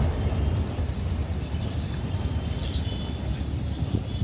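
Low rumble of a passenger train's LHB coaches rolling off a steel girder rail bridge, slowly fading as the train moves away.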